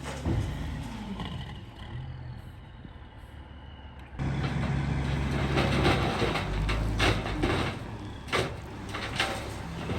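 Skid steer engine running, settling lower for the first few seconds, then suddenly louder and working, with several sharp metallic clanks in the second half.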